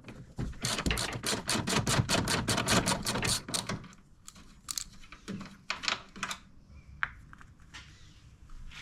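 Ratchet wrench clicking rapidly, about eight clicks a second for some three seconds, then a few scattered clicks and knocks.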